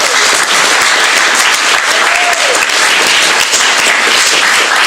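Hall audience applauding loudly and steadily, with two short rising-and-falling whoops, one just before the start and one about two seconds in.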